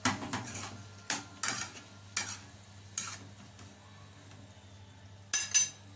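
Kitchen utensils and dishes clattering in a series of sharp knocks, most in the first three seconds and two close together near the end, over a faint sizzle of offal frying in a pan.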